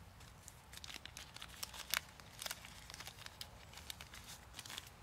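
Tea bag wrapper being crinkled and torn open by hand: a faint, irregular run of small crackles and rustles.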